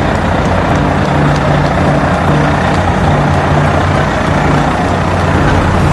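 Fire engine's diesel engine running as the truck drives slowly past close by, a steady low drone.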